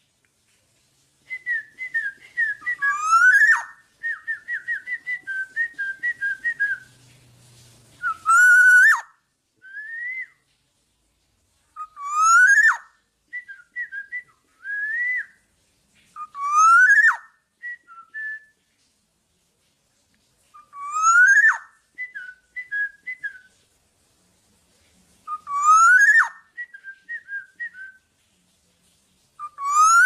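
Black-naped oriole (kepodang) calling: a loud rising whistle repeated about every four to five seconds, with short fluty notes in between.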